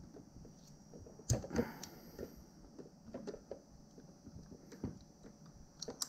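Small scattered clicks and taps of a screwdriver and fingers working a plastic electrical connector and its wires on a fuel pump module, with a louder cluster of clicks about a second in and a couple more near the end.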